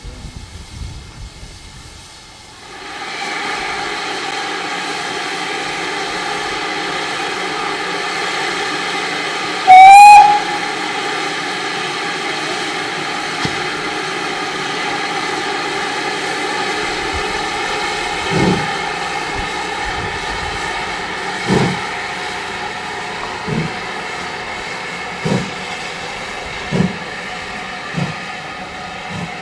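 Steam locomotive: a steady hiss of steam starts a couple of seconds in, the whistle gives one short, very loud blast rising slightly in pitch about ten seconds in, and from about eighteen seconds slow exhaust beats come gradually quicker as the engine gets under way.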